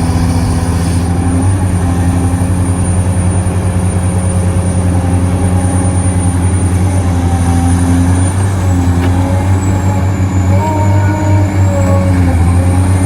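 Heavy diesel earthmoving machinery running: large excavator and haul-truck engines with a steady low drone, several engine and hydraulic tones shifting pitch now and then, more so in the second half.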